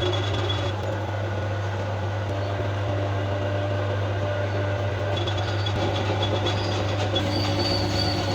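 Steady machine drone: a constant low hum with faint high whines over it, one of which comes in about seven seconds in.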